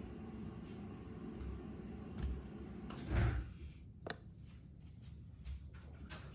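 Workshop handling noises: a few knocks as objects are picked up and set down, the heaviest a dull thud about three seconds in, then a sharp click and several light taps. A steady hiss underneath stops suddenly a little before the click.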